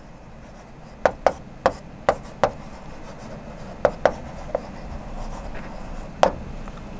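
Writing on a blackboard: a series of short, sharp taps as strokes strike the board, about nine in irregular clusters, over a faint steady room hum.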